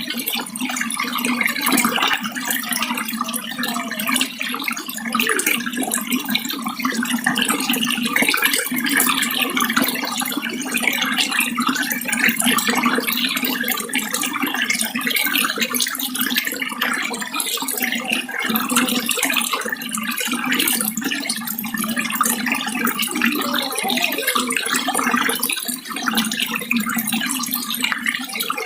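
Running water flowing steadily and continuously, with no pauses.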